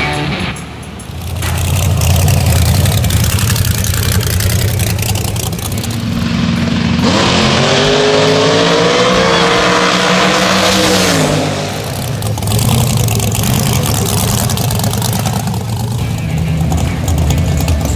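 Drag race car engine at full throttle down the strip, its pitch climbing for about four seconds before it drops away. Before and after, a big race engine runs at a steady, loud idle.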